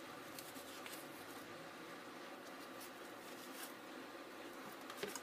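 Faint rustling and a few soft ticks as grosgrain ribbon is handled and stitched by hand, over a low steady hiss.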